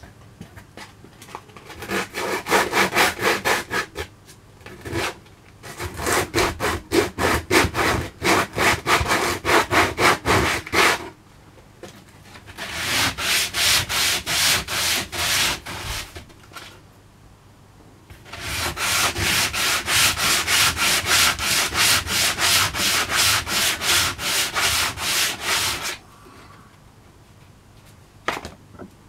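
Coarse 60-grit sandpaper rubbed by hand back and forth over rough pallet wood, in quick rhythmic strokes of about five a second. The strokes come in four bouts with short pauses between them.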